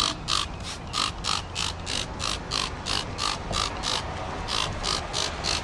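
Hand trigger spray bottle pumped quickly and repeatedly, about three squirts a second, each a short click and hiss of spray, as cleaner is sprayed over the engine bay.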